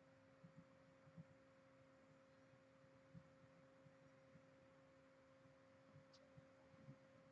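Near silence: a faint steady hum of two tones, with a few soft low thumps and one small click about six seconds in.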